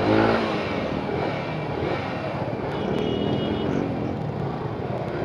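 Motorcycle engines running at walking pace in dense traffic, a steady engine hum mixed with crowd noise. A short, high-pitched beep sounds about three seconds in.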